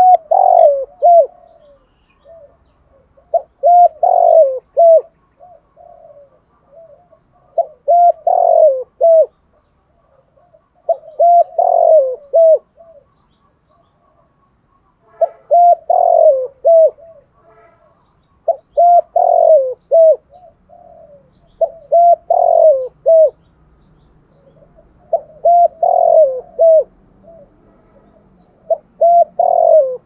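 Caged spotted dove singing its cooing song: a short phrase of several low coos, repeated nine times about every three to four seconds.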